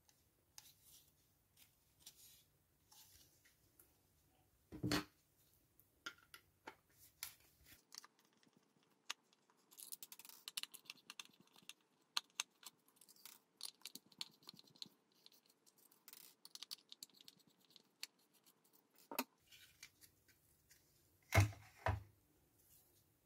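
Small screwdriver clicking and scraping against screws and a circuit board in a plastic soundbar housing, with a few knocks as the parts are handled: one about five seconds in and two in quick succession near the end.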